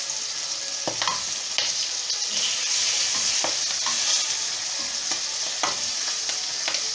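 Stuffed red chillies sizzling in hot mustard oil in a non-stick kadai, with a metal slotted spatula scraping and tapping against the pan now and then as they are turned.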